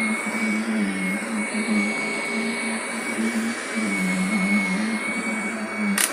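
Vacuum cleaner running with a steady high whine over a low hum that wavers as it works. A sharp click comes near the end, as it is switched off.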